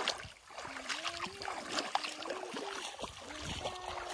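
Footsteps wading through shallow water in a flooded rice paddy, with repeated splashing and sloshing as the legs push through the water and rice plants.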